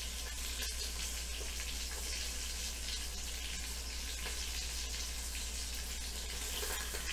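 Pork loin searing in hot oil in an Instant Pot's stainless inner pot on the sauté setting: a steady frying sizzle.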